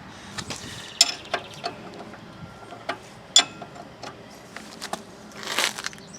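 Torque wrench being worked on a front steering knuckle-to-strut bolt: scattered sharp metal clicks, the loudest about three and a half seconds in, and a short rushing noise near the end.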